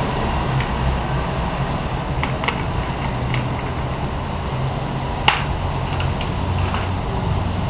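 Scattered light clicks and taps of a cat's paws and the ball against a Catit Play Circuit plastic ball-track toy, with one sharp click about five seconds in, over a steady low hum.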